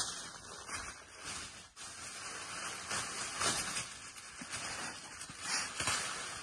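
Tissue paper rustling and crinkling in irregular handfuls as a small child pulls it out of a gift bag.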